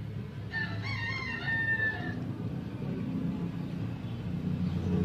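A rooster crowing once, starting about half a second in and lasting about a second and a half, over a low steady hum.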